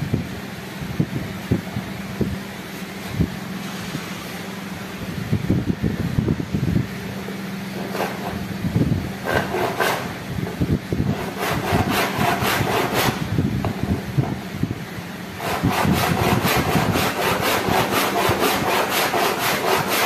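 Hand saw cutting into a wooden frame piece with quick back-and-forth strokes, coming in two runs about halfway through and again near the end, the second longer and louder. A steady low hum runs underneath.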